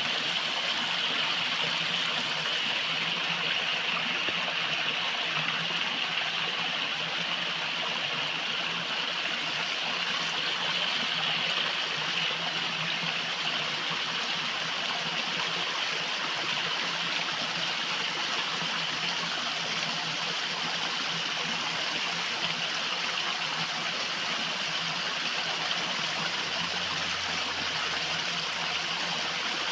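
River water flowing over stones, a steady rushing and trickling with no break.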